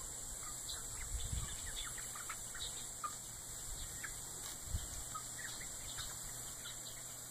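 Young chickens giving many short, high peeps and squawks as they are chased, with two low thumps about a second in and near five seconds.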